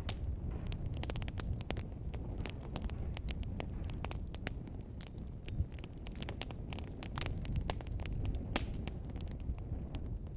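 Wood fire burning in a fireplace, with a steady low rumble of flames and many sharp, irregular crackles and pops.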